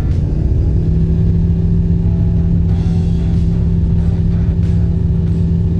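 Light aircraft's engine and propeller at full takeoff power, a loud steady drone whose pitch climbs and then holds about half a second in.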